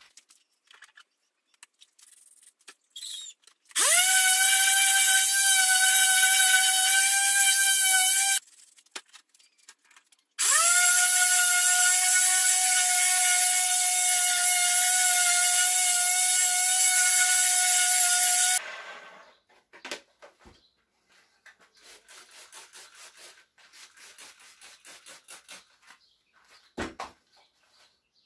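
Small electric power tool motor, such as a drill, run in two bursts of about five and eight seconds, spinning up quickly at each start to a steady high whine; faint handling clicks between and after.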